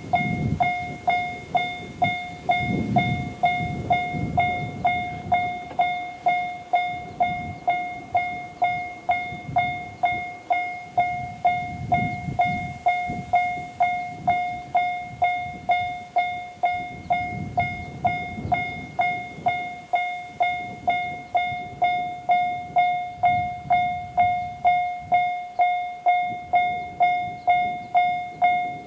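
Japanese level-crossing alarm (JR standard electronic crossing sound) ringing a steady repeating strike, about two a second, each a single clear tone that decays. Only one tone of the usual two-tone alarm is heard: the high-pitched unit has dropped out.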